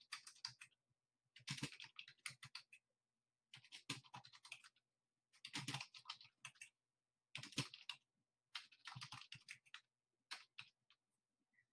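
Faint typing on a computer keyboard, in short runs of quick keystrokes about every one and a half to two seconds with brief pauses between.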